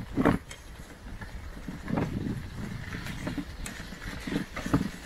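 Bicycle riding over a rough surface: irregular knocks and rattles a second or two apart over a low, steady rumble.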